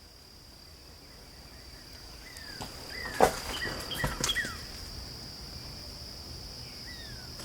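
Steady high-pitched drone of insects, with short falling bird chirps about two to four seconds in and again near the end. A sharp knock about three seconds in is the loudest sound, followed by a few more knocks about a second later.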